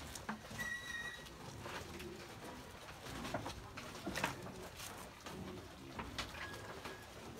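Young goats feeding on cut grass and leaves in a wooden pen: leaves rustling and a few sharp knocks, with a bird cooing in the background and a brief high chirp about half a second in.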